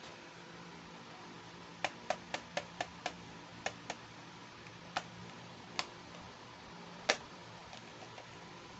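Small plastic toy pieces being handled, giving a series of sharp clicks and taps: a quick run of about seven, then a few sparser ones, the last the loudest. A steady low hiss sits underneath.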